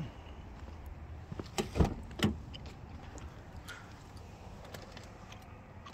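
Car door of a 2007 Acura TL Type S being opened: a few sharp clicks from the handle and latch about two seconds in, the loudest two about half a second apart.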